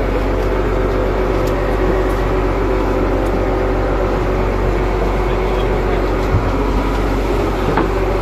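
Fishing trawler's engine running steadily, a constant drone with an even low hum.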